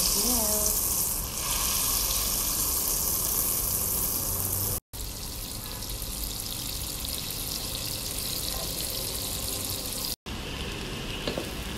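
Butter sizzling as it melts and bubbles in a hot metal pot, a steady frying hiss that cuts out abruptly twice.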